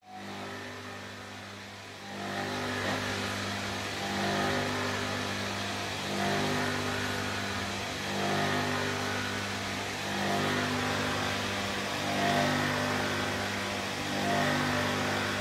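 Electric jet water pump running rough: a steady hum that swells and fades about every two seconds, louder after about two seconds in. It is running dry, drawing no water and so running without load, which is what makes it sound rough.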